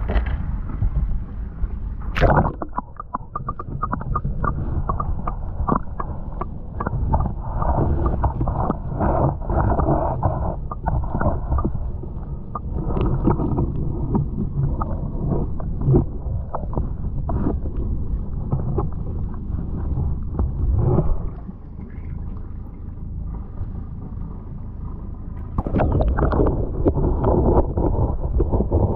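Wind rumbling on the microphone over water lapping and splashing, with many small irregular clicks and knocks. A sharp click about two seconds in is the loudest moment, and it goes quieter for a few seconds past the middle.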